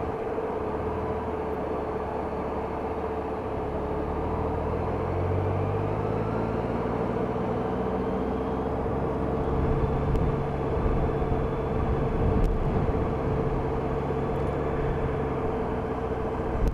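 Honda F6B's flat-six engine running on the move under road and wind noise, its note rising as it picks up speed about five seconds in.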